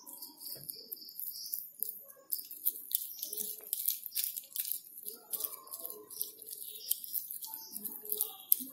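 Soft, sticky clicking and squishing of hands pressing mashed potato around a boiled egg, with faint high bird chirps, a quick run of them in the first second.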